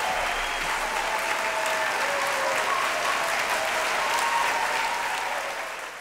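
Large auditorium audience applauding steadily, then fading out near the end.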